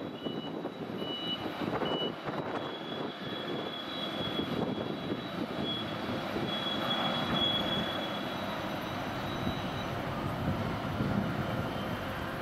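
Container-port machinery heard from a distance: a steady mechanical drone with a thin high whine over it, from a ship-to-shore gantry crane hoisting a container. Four short high beeps sound in the first two seconds.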